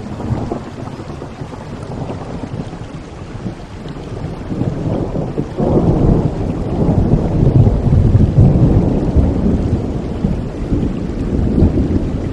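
Thunder over steady rain: a sudden clap right at the start, then a deep low rumble that builds and swells louder about five and a half seconds in and rolls on.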